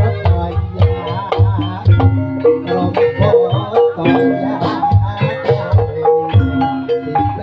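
Live gamelan music: a row of bronze kettle gongs (bonang) struck in quick, ringing note patterns over steady heavy low drum beats.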